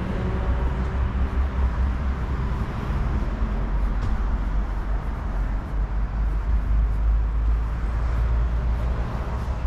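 Steady outdoor background noise: a continuous low rumble under an even hiss.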